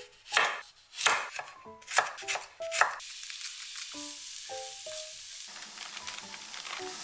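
A chef's knife slicing carrots on a wooden cutting board: a run of sharp chops. About three seconds in, it gives way to a steady sizzle of julienned carrots stir-frying in a pan.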